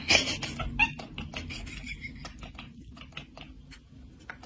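A cat chattering: a run of quick, irregular clicks with a few short squeaky chirps near the start, the way a cat chatters while watching prey through a window.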